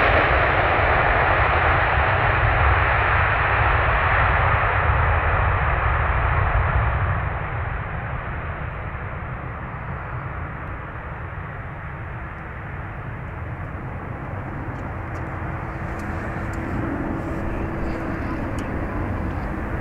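Boeing 767-300ER airliner's jet engines running loud during the landing roll-out. The roar drops sharply about seven seconds in and goes on at a lower level as the jet rolls away, with a steady hum joining near the end.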